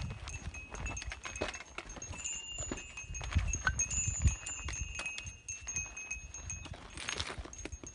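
Footsteps crunching down a loose, stony trail, with trekking-pole tips clicking against rocks in an irregular patter. A thin, steady high ringing, like a small bell, comes and goes over the clicks.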